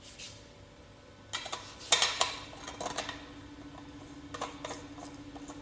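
Plastic and metal parts of a manual meat grinder clicking and clattering as they are fitted together, in a burst of several knocks and then a few lighter clicks near the end.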